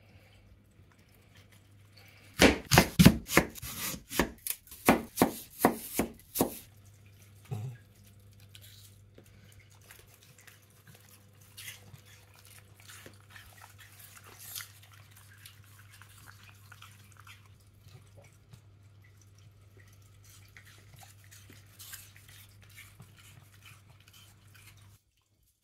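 Cavalier King Charles Spaniel crunching a piece of raw apple: a quick, loud run of crisp crunches for about four seconds, then only faint, scattered chewing, over a steady low hum.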